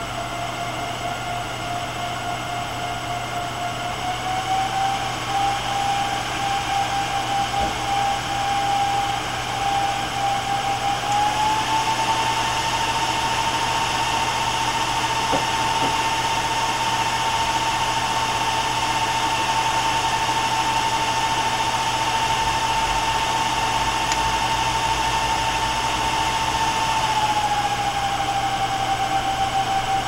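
Twin cooling fans of an MSI GTX 670 Power Edition graphics card (Twin Frozr cooler) whirring with a steady whine as their speed is set in steps. The whine and whir step up in pitch and loudness a few seconds in and again about eleven seconds in, then drop back one step near the end.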